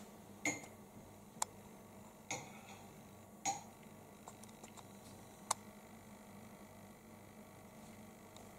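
A handful of sharp, separate clicks and taps, about five clear ones in the first six seconds and a few fainter ticks, over a faint steady hum.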